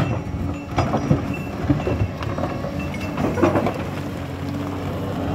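Doosan DX225 excavator at work: its diesel engine runs steadily under load while the bucket digs and scrapes through rocky soil, with stones knocking and clattering several times.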